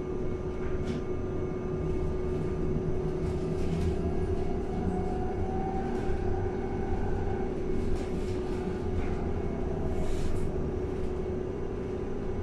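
Cabin sound of a LiAZ-6274 electric bus under way: steady low road rumble and a constant hum, with a faint electric whine that rises and then falls in pitch in the middle as the bus speeds up and slows.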